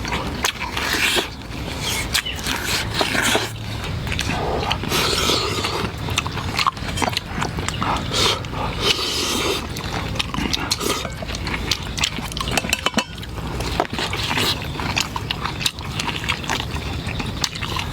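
A person chewing and biting food close to the microphone, with irregular eating noises and small clicks.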